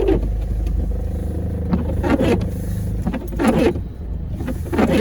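Car engine idling with a steady low hum, with a few short indistinct voice-like sounds over it.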